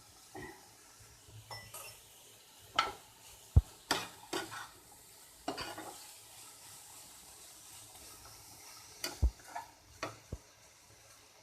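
Vegetables being stir-fried in a pan: a utensil scrapes and knocks against the pan at irregular moments, over a faint steady sizzle.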